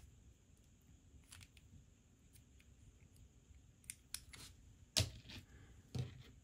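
Handling of a 3D-printed plastic chip clip, with faint light clicks as it is worked in the fingers. Then two sharper plastic knocks, about five and six seconds in, as the printed parts are put down on the mat.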